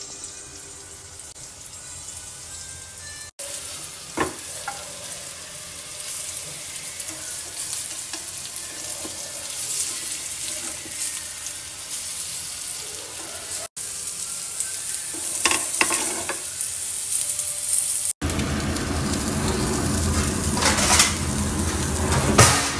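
Flour-and-semolina-coated fish slices shallow-frying in oil in a pan, a steady sizzle that starts about three seconds in and grows louder near the end. A few sharp clicks of metal tongs against the pan come as the pieces are turned.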